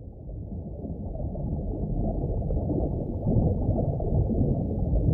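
Muffled underwater water noise picked up by a camera submerged in a river pool: a steady low rushing with no distinct events, fading in and growing louder over the first couple of seconds.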